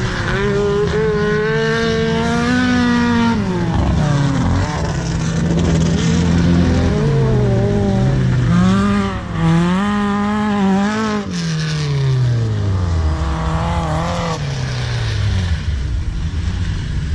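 Off-road race buggy engines racing around a dirt track, revving up and dropping back again and again as they accelerate and ease off. About two thirds of the way through, one engine's pitch falls in a long slide.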